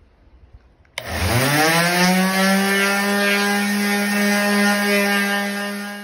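Small Black & Decker electric sander switched on about a second in: its motor whines up in pitch to full speed within a second, then runs steadily.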